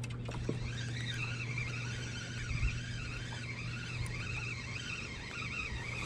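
Spinning reel being cranked in, its gears whirring in a whine that rises and falls with each turn of the handle, over a steady low hum.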